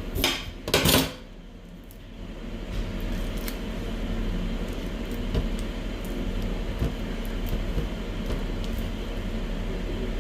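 Two sharp knocks of kitchenware in the first second, then a steady mechanical whir from a running kitchen appliance sets in about two seconds in, with a few light clinks over it.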